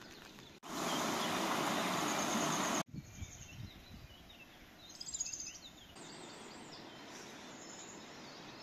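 Outdoor ambience in cut-together pieces: a steady rushing hiss starts abruptly about a second in and cuts off about two seconds later, followed by quieter ambience with birds chirping.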